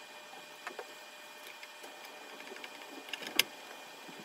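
Light clicks and taps of a small screw and the plastic endstop being loosened and handled by hand on a 3D printer's frame, with one sharper click about three and a half seconds in.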